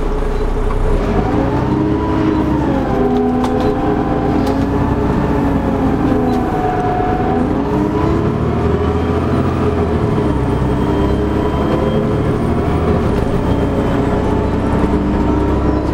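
Dennis Trident double-decker bus's diesel engine and drivetrain heard from inside the saloon: a steady drone with whining tones that rise and fall in pitch several times as the bus speeds up and slows.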